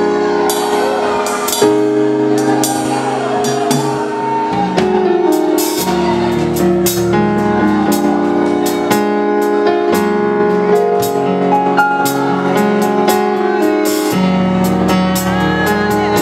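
Worship band music with held keyboard chords and a steady drum beat.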